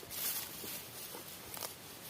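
Faint shuffling and a few soft knocks from cattle moving about, between moos.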